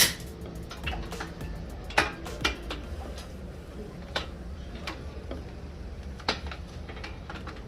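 Irregular light clicks and clinks of tools and bike parts being handled, over a steady low hum.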